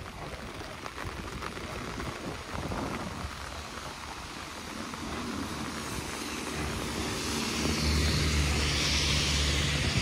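Rain hiss on the wet street, then from about halfway a motor vehicle passing on the wet road: a low steady engine hum with rising tyre-spray hiss, loudest near the end.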